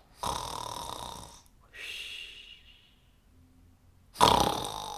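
A woman's pretend snoring, imitating a sleeping tiger: a rasping snore, a softer breathy out-breath, then a louder rasping snore about four seconds in.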